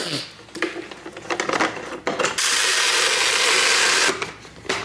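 Clicks and knocks as the containers are opened. Then, about halfway through, Downy Unstopables scent booster beads pour from their bottle into a glass jar, a loud steady rattling hiss that lasts nearly two seconds and stops abruptly.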